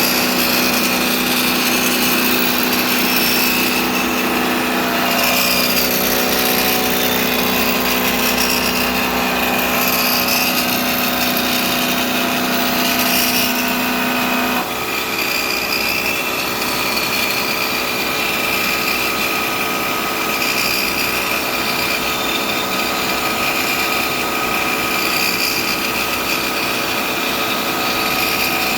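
Machine tool running steadily while machining a bulkhead part, with a steady high-pitched whine over a rough cutting noise. A low hum in it stops about halfway through, and the sound is slightly quieter after that.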